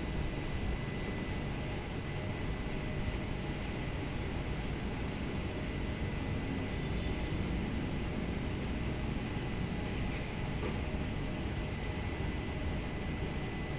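Steady rumbling background noise with a faint, unchanging high-pitched tone running through it.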